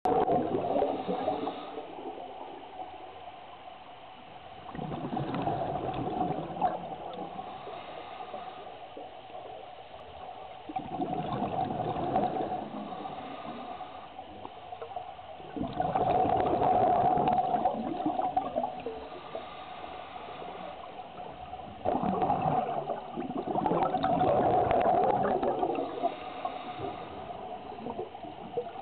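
Scuba diver breathing through a regulator underwater: exhaled air leaves in gurgling, rushing bubble bursts about every five to six seconds, with quieter breathing between.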